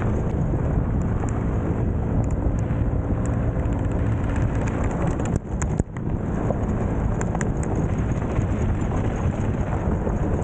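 Small Honda motorbike running along a dirt road, its engine hum buried in heavy wind noise on the microphone and tyre rumble. The sound drops off briefly about halfway through, then carries on.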